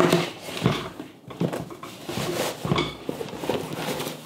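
Mesh sneaker laundry bag rustling, with soft irregular knocks, as a pair of sneakers is pushed down into it.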